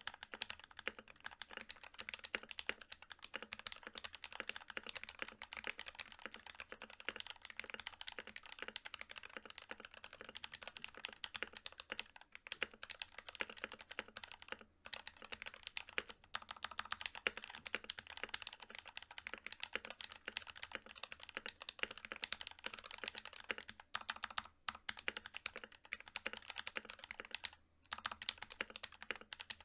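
Fast, steady typing on an NK65 Milkshake Edition mechanical keyboard: polycarbonate case, aluminium plate, prelubed NK_ Silk Yellow linear switches and PBT Cherry-profile keycaps. The keystrokes run densely together, with a few brief pauses.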